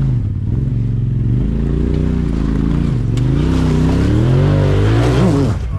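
Polaris RZR Turbo side-by-side engine revving up and down repeatedly under load on an icy climb. The revs climb highest near the end, then drop off abruptly.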